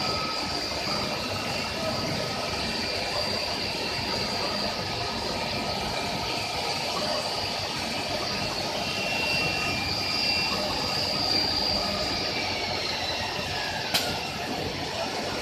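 HQD 9.0 kW automatic-tool-change spindle on a CNC router running with a steady high whine over machine noise. Near the end the whine falls in pitch as the spindle winds down, followed by one sharp click.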